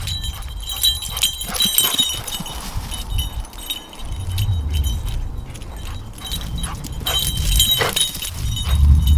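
Small metal pieces jingling lightly, in clusters about a second in and again near the end, over low wind rumble on the microphone.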